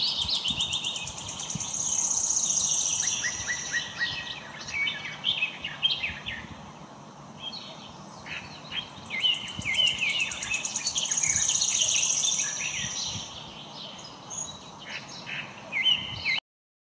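Birds chirping and trilling, many high calls overlapping over a faint hiss. The sound cuts off abruptly just before the end.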